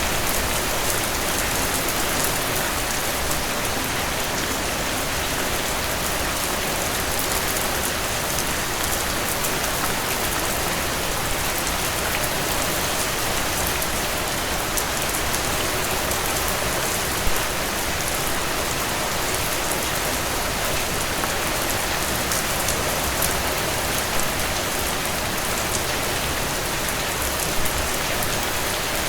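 Heavy, steady rainfall: a dense, even hiss of rain on surfaces with no thunder, with one or two slightly louder drop impacts.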